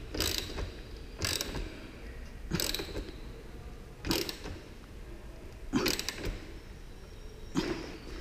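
Ratchet wrench tightening the bolt on the exhaust mounting, clicking in six short bursts about one and a half seconds apart as it is worked back and forth.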